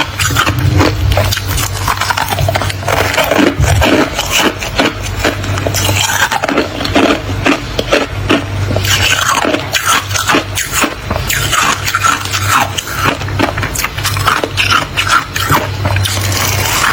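Thick freezer frost being scraped and crunched: a dense, irregular run of crisp scratches and crackles.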